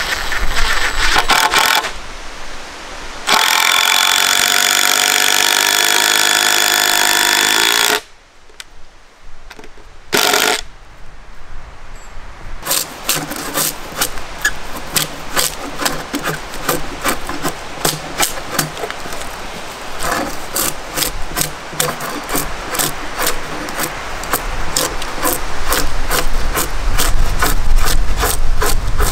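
A DeWalt cordless drill driving screws into a wooden plank, its motor running steadily for several seconds. From about halfway on, a drawknife shaves a squared timber in quick, repeated short strokes.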